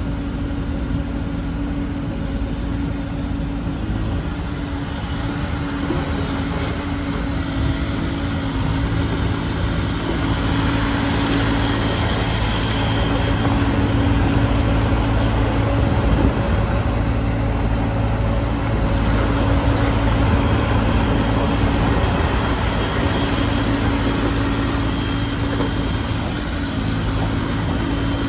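Bobcat E50 mini excavator's 49.5 hp Doosan diesel engine running steadily with a constant hum, working harder and louder through the middle stretch as the boom works and the machine moves on its rubber tracks, then easing off near the end.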